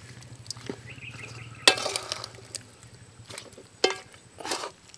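Metal ladle scraping and stirring pork curry in a large wok, a few sharp strokes with the loudest about a second and a half in, while the curry sizzles.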